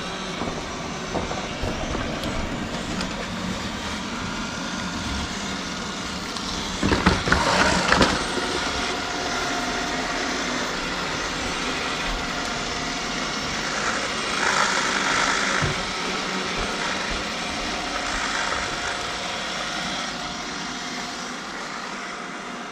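Roborock S8 robot vacuum running with a steady motor whir, with a louder rattle about seven seconds in and another louder spell around fourteen seconds.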